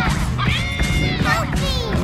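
Upbeat cartoon background music with a steady beat and high, swooping notes over it.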